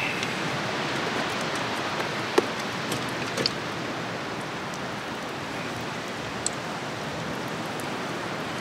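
Hot oil in a deep-fry pot sizzling steadily as hush puppy batter goes in, with a few sharp clicks, the clearest about two seconds in.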